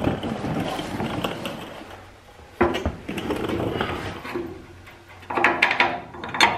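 Clothing rustling close by and metal parts clinking as a steel Z-bar support bracket and its bolt are handled into place, with a sharp clink about two and a half seconds in and a run of clinks and rattles near the end.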